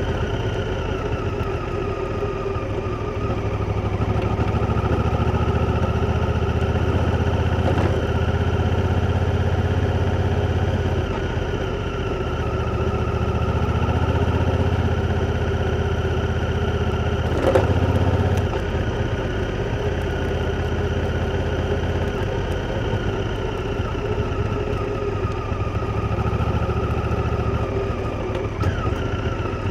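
Honda Africa Twin's parallel-twin engine running while the bike is ridden, its revs rising and easing gently. There is a brief sharp knock a little past halfway, and the revs drop near the end.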